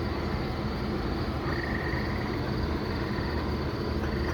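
Steady background hum with insects chirping.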